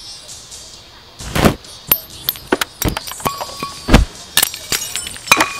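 A string of sharp clicks and knocks, with heavier thumps about a second and a half in and about four seconds in, as clothing dropped from above lands on the paved path.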